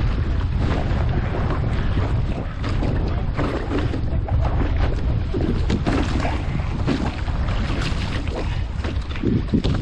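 Wind buffeting an action camera's microphone, with water splashing and sloshing irregularly against a board on the sea.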